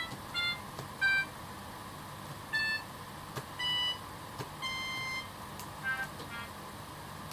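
Single synthesized MIDI notes played one at a time from a computer keyboard laid out like a button accordion. They come haltingly, with gaps of about a second, then one note held for about half a second, then a quick run of short notes near the end. Faint key clicks fall between them.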